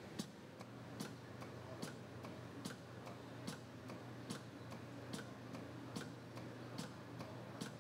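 Faint, steady mechanical ticking from factory machinery, about two to three evenly spaced clicks a second over a low steady hum.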